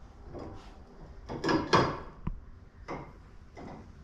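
Steel roll-cage tubes scraping and sliding against each other as a tube is worked into place. There are several short scrapes, the loudest about a second and a half in, with a sharp click just after.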